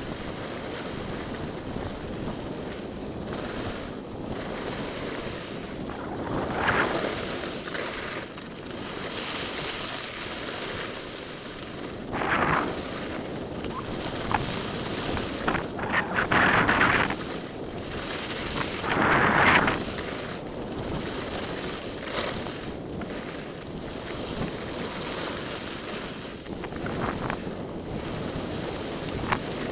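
Wind rushing over the microphone of a skier's camera, with skis sliding over packed snow and louder swooshes about four times.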